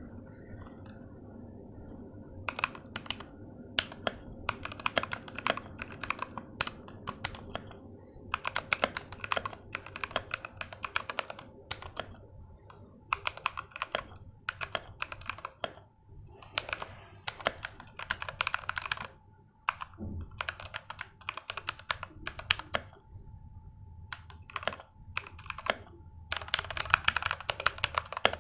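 Typing on a Redragon K662 60% mechanical keyboard with red switches: runs of rapid key clicks broken by short pauses, starting a couple of seconds in. The sound is fairly deep.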